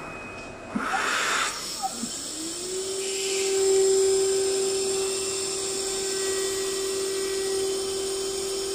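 Richpeace template milling machine running: a steady high-speed whine rises in about two seconds in and holds while the cutter cuts a circle into a plastic template sheet. A short hiss comes just before one second, with brief rising and falling motor tones as the head moves.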